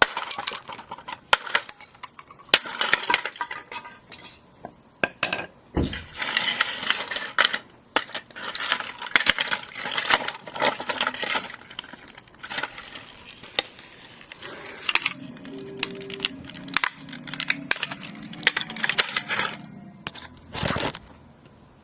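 A plastic toy alarm clock radio being broken up, its hard plastic pieces and small parts clattering, clinking and scraping in bursts, with a couple of dull thumps.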